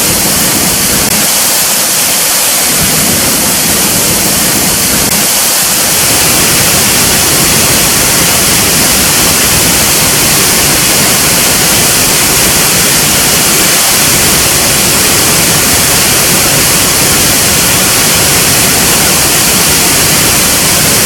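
Loud, steady rush of falling water, an unbroken hiss that grows slightly louder about six seconds in.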